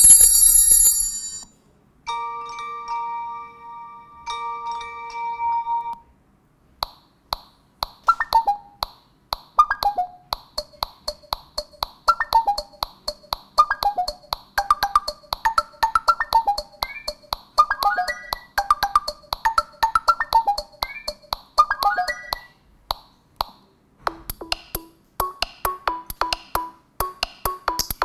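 Google Pixel 3a XL built-in 'Pixel Sounds' ringtones played one after another. A held two-note chime sounds twice. Then comes a long melody of quick, short, struck notes, and near the end a new ringtone with a steady electronic beat starts.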